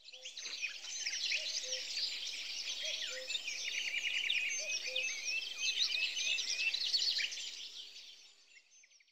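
A chorus of many songbirds chirping and singing at once, with many short overlapping chirps. It fades in at the start and fades out near the end.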